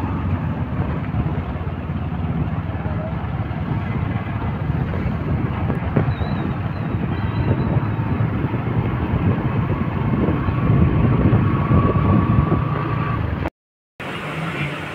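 Riding on a motorbike: the engine runs under steady rumbling wind noise on the microphone, louder for a couple of seconds past the middle. It cuts off suddenly near the end.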